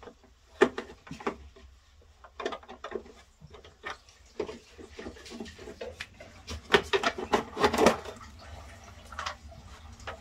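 Plastic front cover of an electrical switchboard being unscrewed with a screwdriver and lifted off: a scatter of light clicks, knocks and rattles, with the loudest clatter about seven to eight seconds in.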